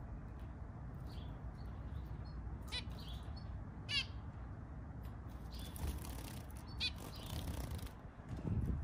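Caged zebra finches giving a few short, nasal calls, the loudest about four seconds in, over a steady low background rumble. A low flutter of wings near the end as one bird flies across the cage.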